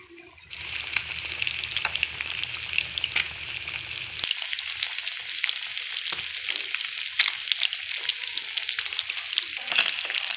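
Masala-coated fish pieces frying in hot ghee in a pan: a steady, dense sizzle full of fine crackling pops, setting in about half a second in.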